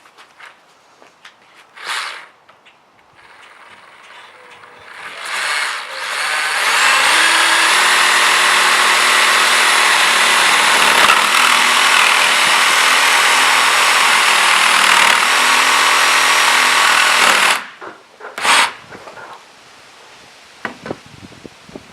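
Electric jigsaw sawing into an alkaline D-cell battery held in a vise: a couple of short bursts, then the saw runs steadily and loudly for about eleven seconds and stops abruptly, followed by one more short burst.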